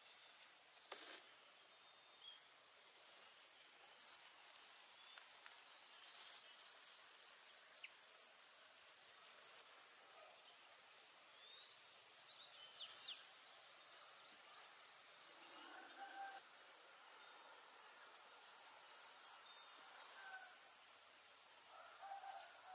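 Insects chirping faintly in a steady high pulse, about three chirps a second, growing louder and stopping about ten seconds in, over a thin continuous insect hum. A few brief faint bird calls follow, with a second short run of chirps near the end.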